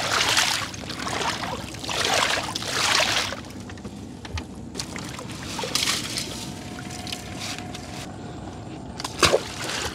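Wet gill net being hauled over the side of a wooden boat, with water splashing and pouring off the mesh in several short bursts. A single sharp knock near the end.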